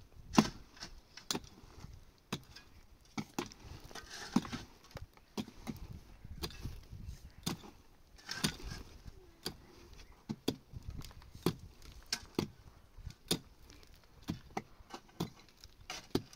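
Pickaxes striking hard, dry, stony earth in irregular overlapping blows, about two a second, from more than one digger. Twice there is a short scraping of loosened soil.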